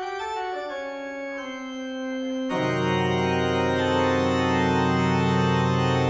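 Background music of held chords over a slowly descending line of notes, opening out into a fuller, louder chord about two and a half seconds in.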